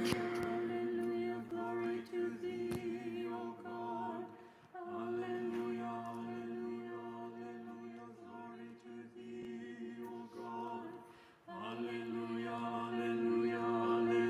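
Unaccompanied Orthodox liturgical chant, sung on a steady held pitch in three phrases with short breaks about five and eleven and a half seconds in.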